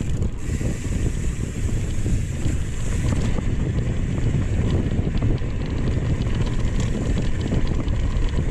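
Mountain bike descending dirt singletrack at speed: wind buffeting the camera's microphone over the rumble of knobbly tyres on the trail, with many small clicks and rattles from the bike over bumps in the second half.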